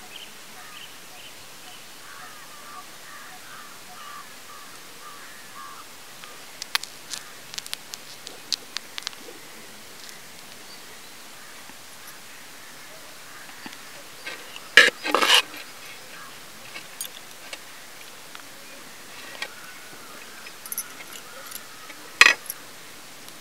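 Metal slotted spoon scooping rice into a clay pot: scattered light clicks, then a sharp double knock about midway and another near the end as it taps on the pot. Faint birds call against a steady outdoor hiss early on.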